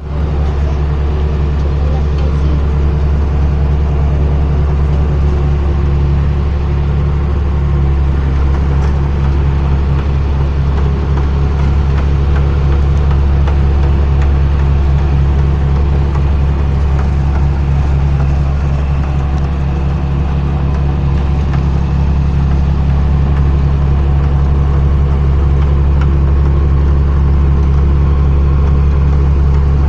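Rice combine harvester's engine running steadily with a loud, even low hum.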